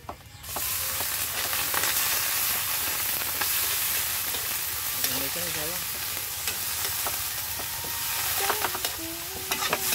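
Food tipped into hot oil in a large wok bursts into a loud sizzle about half a second in, then keeps frying steadily while a metal spatula stirs it, with small scrapes and clicks against the pan.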